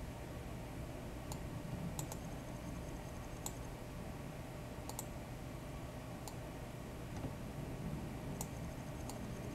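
Computer mouse button clicking about nine times at irregular intervals, twice in quick double-clicks, as the view on screen is turned. A steady low hum runs underneath.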